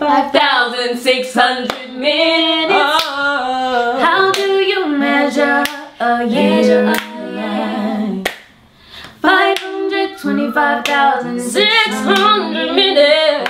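Young women singing together a cappella, without any instruments, with a brief break about eight and a half seconds in.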